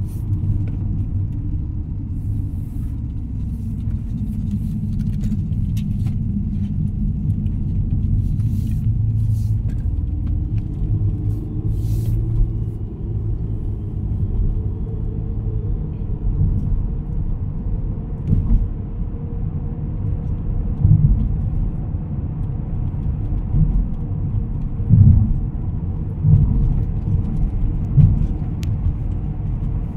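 Road and engine noise heard from inside a moving car: a steady low rumble, with a few brief low thumps in the second half.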